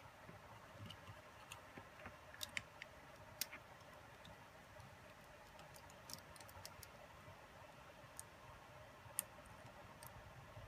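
Faint, scattered light clicks and ticks of small gimbal parts being handled on a DJI Phantom 3 camera gimbal, irregular, with the sharpest click about nine seconds in.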